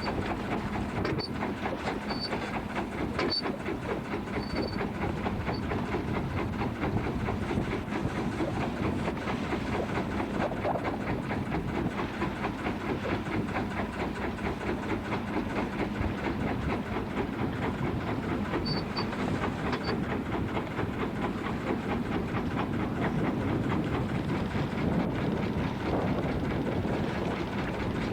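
Boat engine running steadily with a fast, even knocking beat. A few faint, short, high chirps come near the start and again about twenty seconds in.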